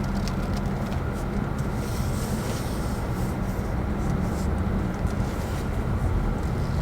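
Steady low rumble of a car in motion, heard from inside the cabin: engine and road noise, with a few faint clicks.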